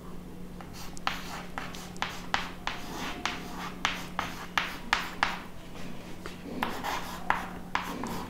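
Chalk writing on a chalkboard: a quick, irregular series of short taps and scratches, roughly two to three a second, as letters are written.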